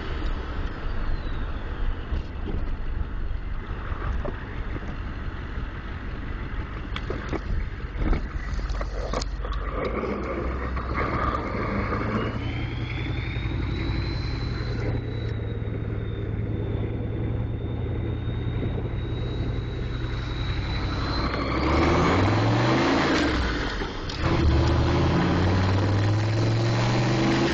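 6.5-litre turbo diesel with a Holset HX40 turbocharger, driven under load through the gears. The turbo's high whistle falls away at the start, rises again and holds steady for several seconds, then the engine climbs in revs twice in quick succession near the end as it accelerates through shifts.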